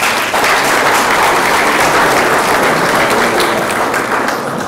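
Audience applauding: many people clapping at once, easing off slightly near the end.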